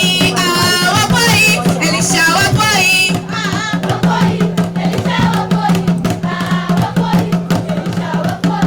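Music with singing over drums and rattles, the voices strongest for the first three seconds and then fading back under a steady fast beat.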